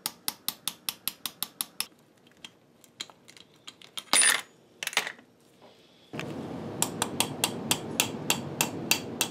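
Small hammer tapping a pin punch to drive pins out of a milling-machine headstock, giving sharp metallic taps. They come fast, about six a second, for the first two seconds, then scatter with a couple of louder clatters in the middle, and settle into about three taps a second near the end over a background hiss.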